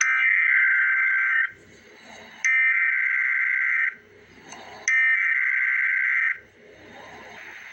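Emergency Alert System SAME header: three bursts of rapid two-tone digital data, each about a second and a half long with about a second's pause between. The bursts encode the alert's type, area and valid time, here a winter weather advisory.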